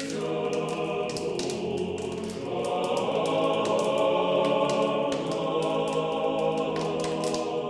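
Choir singing held, sustained chords as closing music, swelling a little louder about two and a half seconds in.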